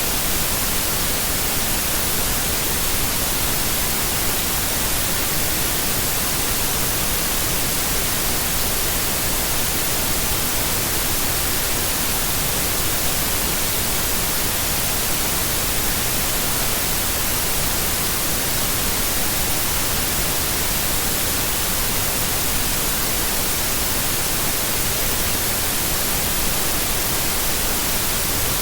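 Steady electronic white noise: an even hiss, strongest in the highs, running without a break.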